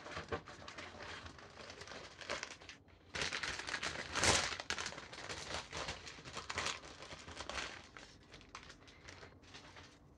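Thin plastic bags holding model-kit runners crinkling and rustling as they are handled and opened, with small plastic clicks. The loudest crinkling comes about four seconds in.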